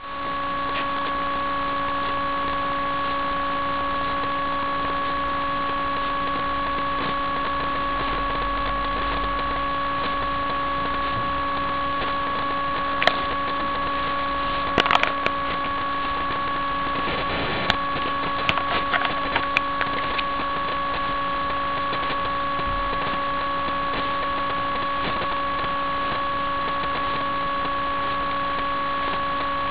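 A steady hum of several fixed tones that holds at one level throughout, with a few sharp clicks and taps about halfway through.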